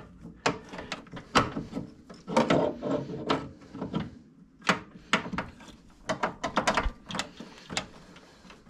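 Irregular clicks, knocks and rattles of metal parts handled by hand as a custom steering shaft piece is worked into place through the firewall.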